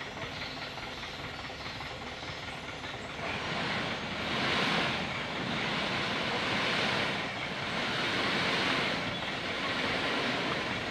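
Dump truck engine running with its bed tipped while crushed stone pours out as the truck creeps forward. About three seconds in, a hissing rush rises, and it swells and eases three times.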